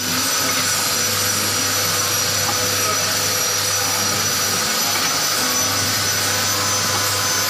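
Automatic liquid packing machine for cooking-oil pillow sachets running steadily: a continuous mechanical hum with a thin, high-pitched steady whine over it.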